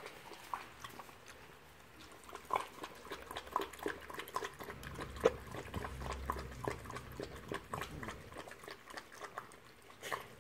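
A puppy lapping water from a plastic bowl, a quick, irregular run of wet laps.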